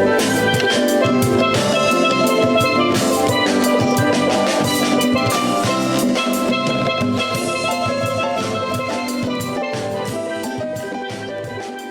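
Steelpan music backed by a drum kit, fading out gradually over the last several seconds.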